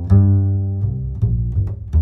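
Background music with a deep string bass line, a new note starting roughly every half second.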